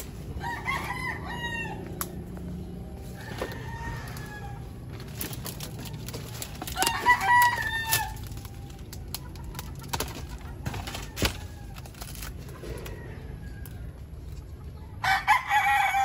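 Rooster crowing several times, the loudest crow about seven seconds in and another starting near the end, with scattered snaps and rustles of dry debris in between.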